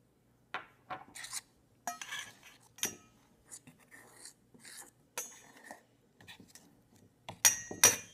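A metal spoon scraping and clinking against the inside of a stainless steel pot in short, irregular strokes as dough is stirred. The loudest scrapes come near the end.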